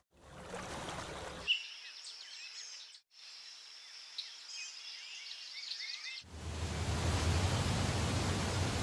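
Outdoor ambience in abrupt cuts: a steady high insect trill with scattered bird chirps, then, about six seconds in, a louder steady rushing noise takes over.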